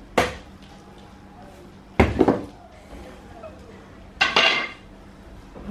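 A heavy chopping knife struck down into a whole raw jackfruit on a wooden block. There is a single chop just after the start, a quick cluster of chops around two seconds in, and a last knock a little after four seconds that rings like metal.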